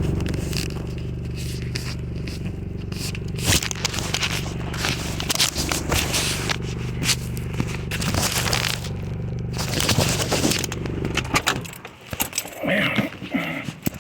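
Scraping and crackling noise over a steady low hum. The hum stops about eleven and a half seconds in, and a brief voice follows near the end.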